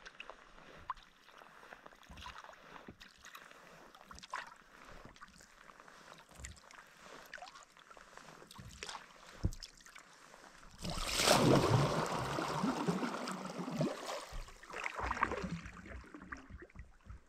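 Kayak paddled on a calm lake: quiet paddle strokes and water sounds against the hull. About eleven seconds in, a louder rushing noise lasts around three seconds, followed by a shorter one.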